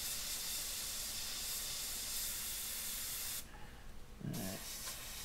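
Iwata HP-C airbrush spraying a steady hiss of air and black paint at a very low paint flow, as used for fine freehand dots. It cuts off about three and a half seconds in.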